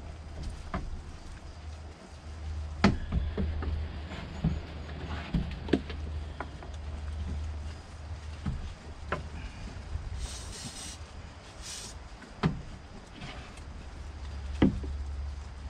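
Sheep feeding at a feed trough of grass and ration: scattered knocks and clicks as they jostle and root in the feed, over a steady low rumble, with two short hisses about ten and twelve seconds in.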